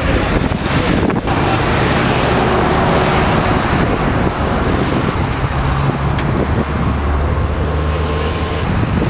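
Road traffic passing close by on a highway: a steady rush of car and van engines and tyre noise.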